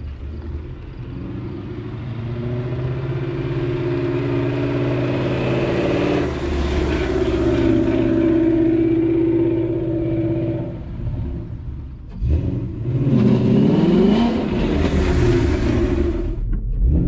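2012 Ford Mustang Boss 302's 5.0-litre V8 held at steady high revs for about ten seconds, as for a burnout to clean the rear tyres. After a brief drop, the revs rise and fall in several sweeps.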